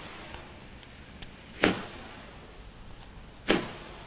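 Standard Fireworks roman candle firing: two sharp pops about two seconds apart, each launching a star.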